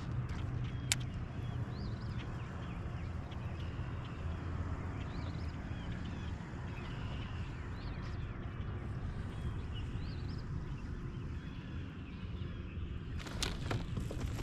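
Birds chirping faintly over a steady low rumble of wind, with a few sharp clicks near the end.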